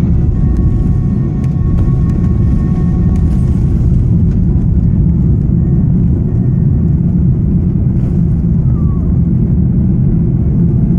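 Cabin noise of an Airbus A330-300 with Rolls-Royce Trent 700 engines, heard over the wing on the ground just after landing: a loud, steady low rumble. A faint high whine stops about four seconds in.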